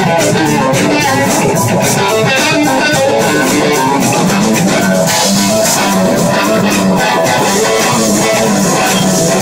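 Live rock band playing loud and steady: a lead electric guitar solo on a red SG-style guitar over bass, with drums keeping an even cymbal beat.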